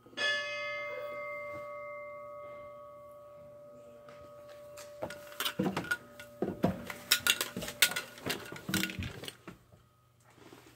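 Fire truck's bell rung once by its pull cord, a single clear strike that rings on and fades over about four seconds. After that comes a run of knocks and clatter as things are handled in the cab.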